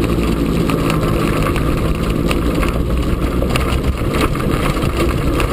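EZGO golf cart driving over rough ground: its motor running steadily, with the cart's frame rattling and knocking throughout.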